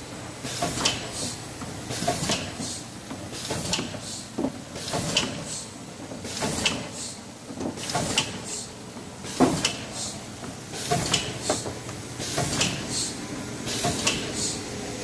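Shanklin Triumph shrink-wrap packaging machine running: a steady low motor and conveyor hum, with a clack and a short burst of hiss about every one and a half seconds as it cycles through the packages.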